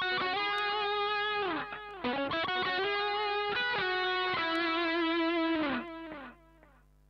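Distorted electric guitar lead played through a Mooer GE100 multi-effects unit on its 'Solo' preset: a few long sustained notes, each ending in a slide down in pitch. The playing stops about six seconds in, leaving a faint steady hum.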